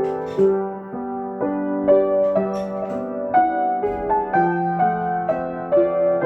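Acoustic piano improvisation: gentle, slow-moving chords and melody notes, a new note or chord struck about every half second and left to ring.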